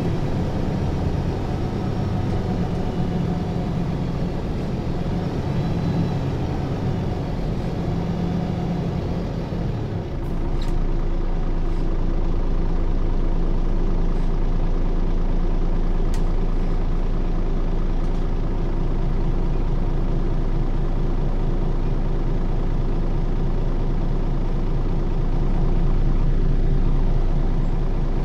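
MAN NL 283 Lion's City city bus's six-cylinder diesel idling while the bus stands still. About ten seconds in, the sound settles into a steadier, slightly louder low hum, with a couple of short clicks.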